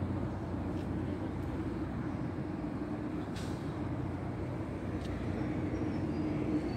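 Steady low rumble of a running engine, with a faint steady hum and a few light clicks.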